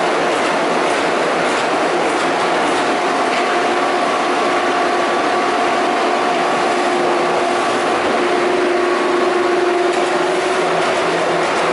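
Euromac MTX CNC turret punch press running, a dense continuous clatter. A steady whine with overtones joins in about three seconds in and grows stronger toward the end.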